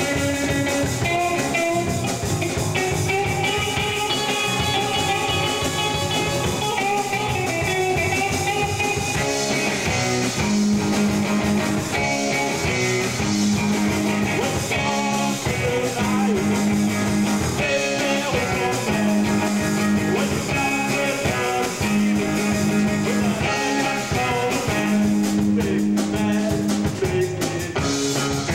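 Rock band playing: electric guitars over drums, with a singing voice.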